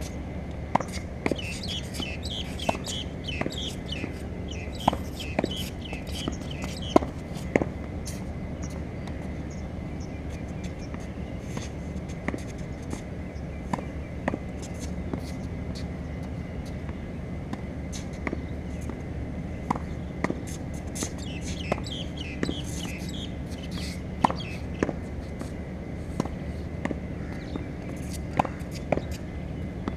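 Tennis ball being hit against a practice backboard: sharp, irregular knocks of racket strikes, the ball hitting the wall and bouncing on the hard court. High chirping comes in twice in the background.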